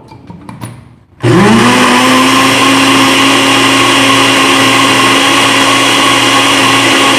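Electric blender switched on about a second in, its motor spinning up quickly and then running at a steady pitch as it blends an iced melon shake.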